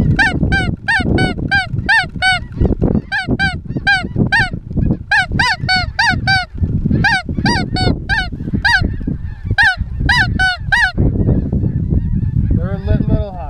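A rapid, even series of loud Canada goose honks, about three a second, stopping about eleven seconds in, with one lower honk near the end, over a steady low rumble.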